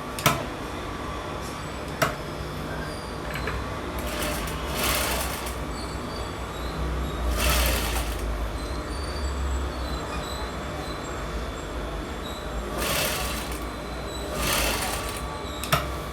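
Sewing machine running with a steady low hum that grows stronger for a few seconds in the middle. A few sharp clicks and several brief hissing swishes come over it.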